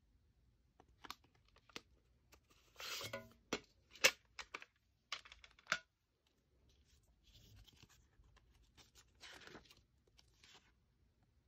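A plastic CD jewel case and its paper booklet being handled: sharp clicks and taps of the case, the loudest about four seconds in, with the booklet sliding out of the case's front and rustling as it is unfolded.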